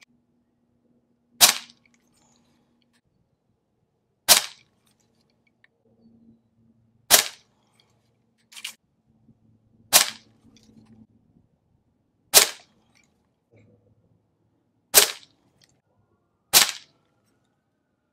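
A .22 Benjamin Marauder pistol (pRod) pre-charged pneumatic air pistol fires a seven-shot string, each shot a sharp crack, a few seconds apart. A fainter click sounds between the third and fourth shots.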